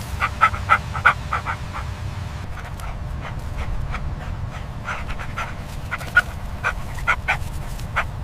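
An animal making short sharp sounds in quick clusters, over a steady low rumble.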